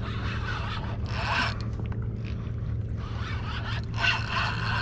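Fishing reel being cranked under load from a big red drum, rasping in two bursts, about a second in and again from about three seconds in. A steady low hum runs underneath.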